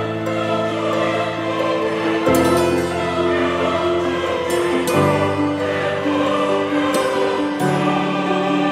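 Background music of slow, sustained chords that change about every two and a half seconds.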